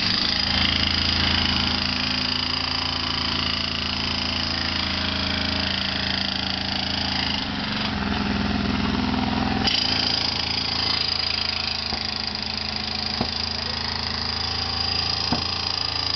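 A machinery engine running steadily at a construction site, its sound shifting for a couple of seconds around the middle, with a few sharp knocks in the second half.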